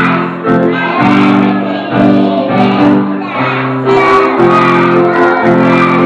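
Loud music with singing, held notes changing every half second or so.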